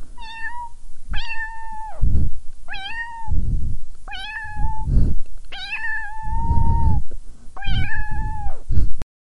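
A cat meowing six times in fairly high, even-pitched calls that drop off at the end. The fifth call is drawn out longest. Loud low rumbling noise on the microphone comes between the calls.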